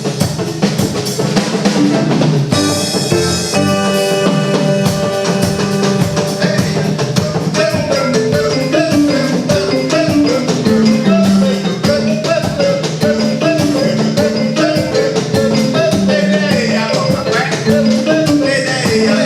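Music: a band track with a drum kit and percussion keeping a fast, steady beat under pitched melodic instrument lines.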